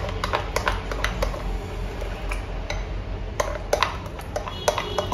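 A spoon clinking and scraping against a glass bowl as thick semolina (suji) batter is stirred to break up lumps, in quick irregular clicks several times a second.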